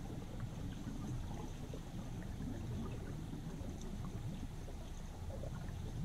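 River current heard from under the water: a steady low rumble and gurgle of flowing water, with faint scattered ticks.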